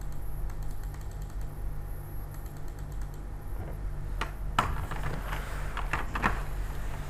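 Scattered clicks from a computer keyboard and mouse, a handful of them in the last three seconds, over a steady low electrical hum.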